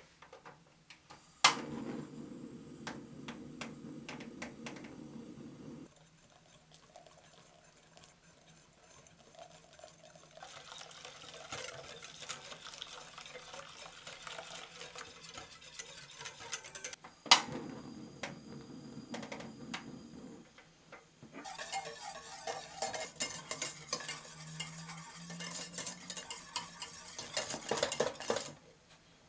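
A wire whisk stirs, first through hot milk and egg yolks in a glass bowl, then with rapid scraping against a stainless saucepan as the custard cream thickens. Twice a sharp click is followed by a few seconds of steady low noise.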